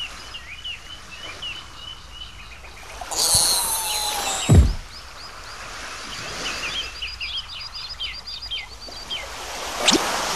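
Birds chirping steadily as background ambience. About three seconds in, a cartoon sound effect plays: a burst of high hiss and a slowly falling tone that ends in a loud, deep, dropping thump. A short whoosh follows near the end.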